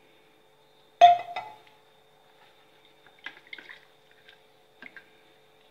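A sharp metallic clank of a steel cooking vessel about a second in, ringing briefly, followed by a few faint knocks and scrapes of pots being handled over a low steady hum.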